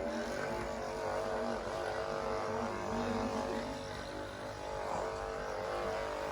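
A steady droning hum holding several pitches, motor-like in character.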